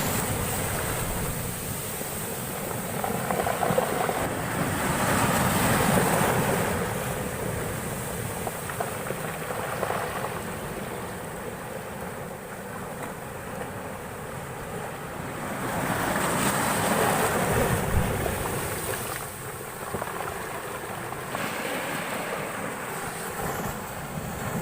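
Heavy storm surf breaking and washing ashore, swelling loudly twice as big waves come in, a few seconds in and again past the middle.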